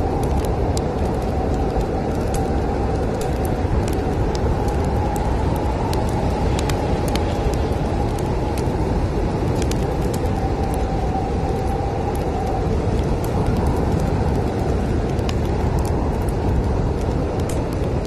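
Steady, heavy rumble of snowstorm wind with a faint whistling tone that fades out about two-thirds of the way through, over the scattered sharp crackles and pops of a wood fire.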